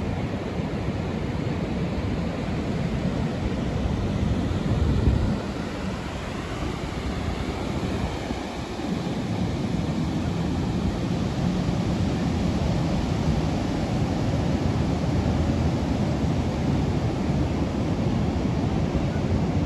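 Steady rush of wind on the microphone and sea water, with a low engine-like hum underneath, as on a boat ride out at sea; it swells briefly about five seconds in.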